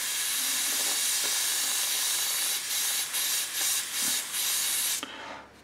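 Mr. Hobby PS267 airbrush spraying lacquer thinner on compressed air: a steady hiss that stutters several times in the second half and cuts off about five seconds in. It is a final flush of clean thinner to show that the freshly cleaned airbrush sprays no paint.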